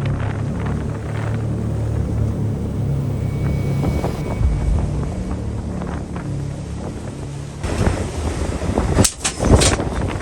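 Fishing boat's engine running steadily with a low drone. Near the end a rougher rush of noise comes in, with a few sharp loud bursts.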